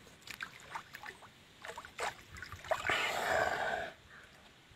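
Water splashing and trickling as a man scoops pond water in his cupped hands and splashes it over his face, with a longer, louder splash about three seconds in.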